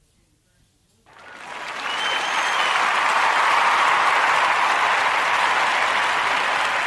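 Crowd applauding and cheering, fading in about a second in and then holding steady and loud, with a short whistle about two seconds in.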